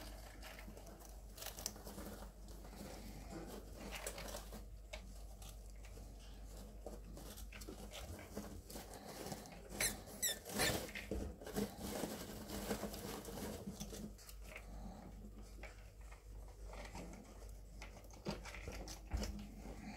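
Pet rats scrabbling and rustling in wood-shaving bedding while a hand strokes them, with a short run of high-pitched rat squeaks about halfway through.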